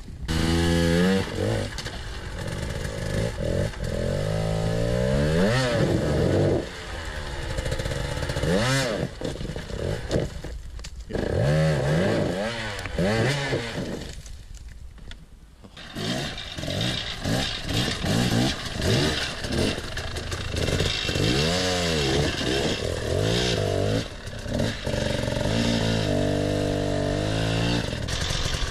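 Two-stroke enduro dirt bike engines revving hard in repeated short bursts, the pitch rising and falling with each blip of the throttle as the bikes are muscled up rocky ledges, with a couple of brief quieter spells where the engine drops back.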